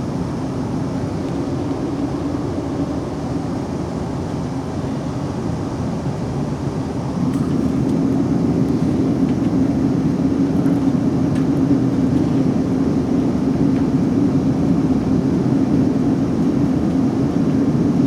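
Running noise inside a South Western Railway Class 458 electric multiple unit under way: a steady rumble with a constant hum, growing louder about seven seconds in.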